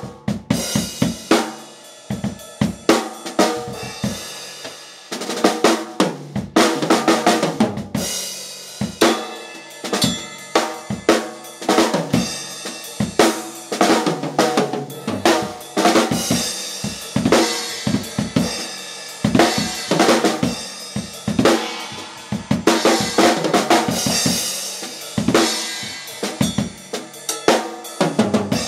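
Drum kit being played: snare, bass drum and cymbals in fast, dense strokes with a steady cymbal wash.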